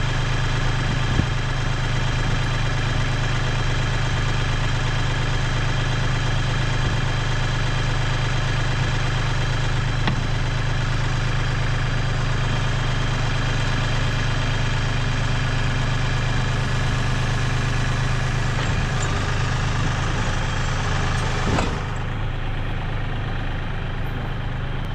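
Compact tractor's diesel engine idling steadily while the backhoe is uncoupled. Near the end there is a single clunk, and the engine sound drops as the tractor pulls forward off the backhoe.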